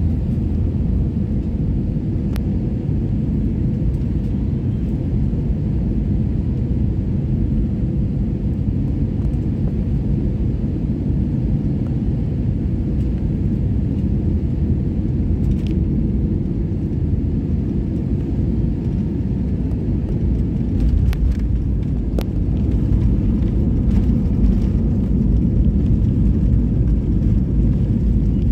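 Steady low rumble of an airliner's engines and airflow heard inside the passenger cabin during landing. It grows a little louder about 20 seconds in, with a few faint clicks.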